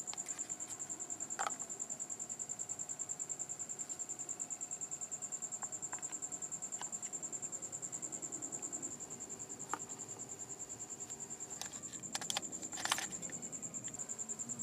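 An insect trilling: one high tone pulsing rapidly and evenly without a break, with a few light clicks and knocks near the end.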